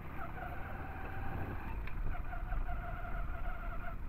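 Hero Splendor 100 cc single-cylinder motorcycle engine running under way, a steady pulsing tone that drops out briefly about halfway through, over a low rumble of wind and road on the microphone.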